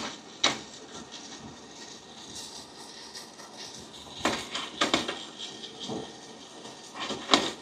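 Sharp metal clinks and knocks from a coffee roaster's sampling spoon being drawn out and pushed back in to check the roast colour mid-roast, over the roaster running steadily. The clinks come at the start, in a cluster about four to five seconds in, and again near the end.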